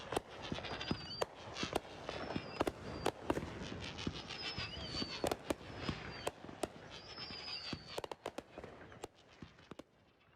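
Fireworks going off: a rapid, irregular string of sharp bangs and crackles, with high whistles now and then. The bangs thin out and fade over the last two seconds.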